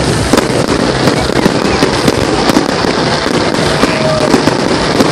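Fireworks display going off: many sharp bangs and crackles in quick, irregular succession.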